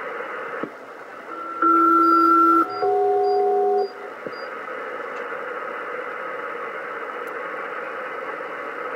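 Kenwood TS-450S HF transceiver in upper sideband on an aeronautical HF frequency, giving steady static hiss between transmissions. About a second and a half in, a SELCAL call sounds: two tones together for about a second, then after a brief gap a second pair of different tones for about a second, the signal that pages a particular aircraft to answer.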